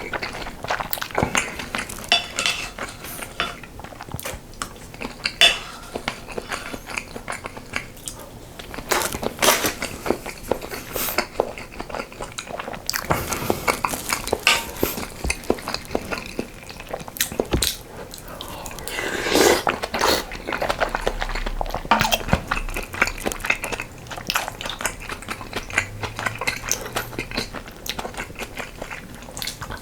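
Eating sounds: utensils clicking and clinking against dishes over and over, along with chewing.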